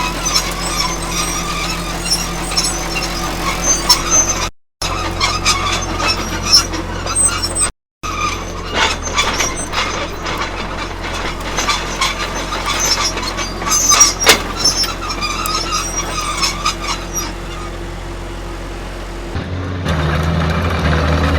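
Military tank on the move: a steady low engine rumble under the squeals and clanks of its tracks. The sound cuts out to silence for a moment twice in the first eight seconds, and the engine grows louder near the end.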